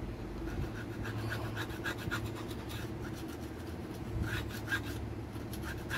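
A rubber eraser rubbed back and forth over a graphics card's gold edge-connector contacts in quick scratchy strokes, scrubbing off light oxidation.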